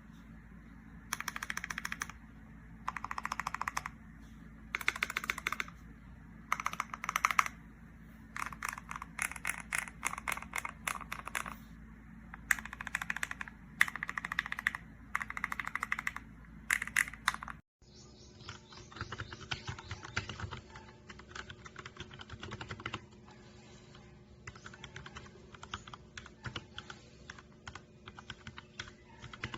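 Typing on a mechanical keyboard with Gateron Pro Milky Yellow linear switches: fast runs of keystrokes in bursts about a second long, with short pauses between. About two-thirds of the way through it cuts to a different recording of steadier, quieter typing with less treble.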